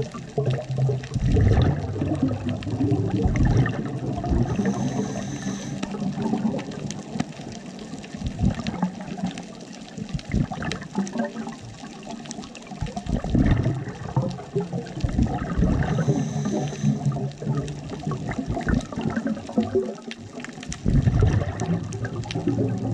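Scuba diver's regulator breathing underwater: exhaled air bubbling out in uneven gushing surges every few seconds. A brief high whistle comes twice.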